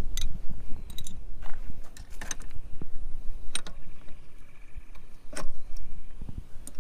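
Scattered small metal clicks and clinks of a wrench working the lock nut on an outboard motor's shift linkage rod, over a low rumble.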